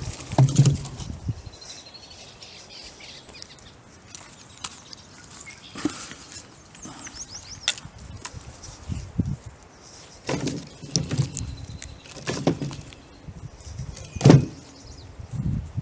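Dry storm-fallen branch tossed into a wooden box with a clatter near the start, then footsteps and rustling through grass, dead leaves and twigs, with several knocks and a sharper thump near the end. Birds chirp faintly now and then.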